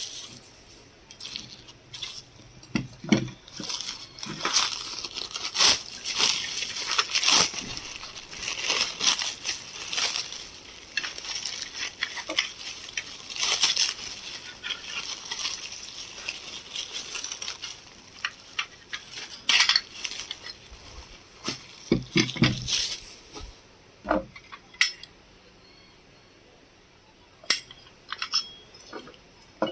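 Small dishes and utensils being handled, clinking and knocking against each other, with rustling along with the clinks through the first half. Later only a few scattered clinks remain.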